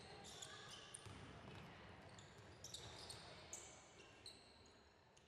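Faint sounds of a basketball game on a hardwood court: sneakers squeaking repeatedly on the floor and a ball bouncing, heard in a large gym.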